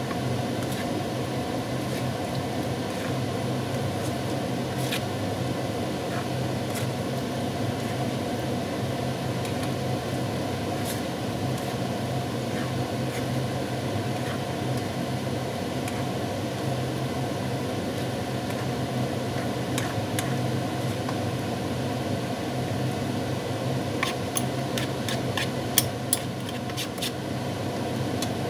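Steady fan-like hum and hiss in a kitchen, with a few light knocks of a spatula in a wok of stir-fried vegetables and a quick run of sharp clicks near the end as a metal spoon touches the pan.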